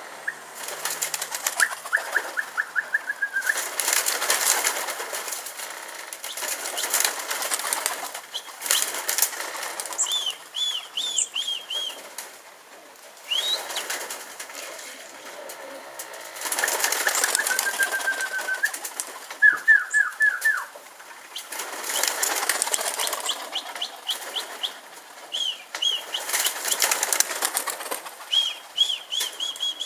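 A flock of pigeons flapping their wings in repeated loud bursts of a second or two as they take off and circle. Runs of short, high, quickly repeated chirps come between the bursts.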